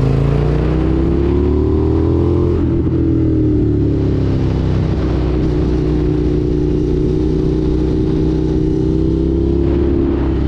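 Indian FTR 1200 S motorcycle's V-twin engine under way. The revs climb for the first couple of seconds, ease off over the next two, then hold steady.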